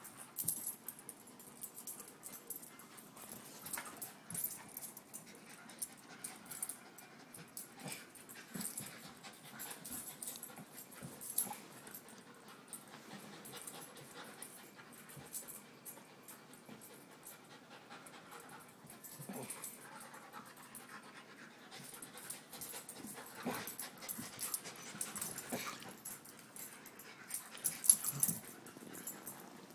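Two dogs playing tug of war with a toy, panting, with scuffing as the lying dog is dragged across the carpet and irregular short sharp sounds throughout. It gets busier and louder near the end.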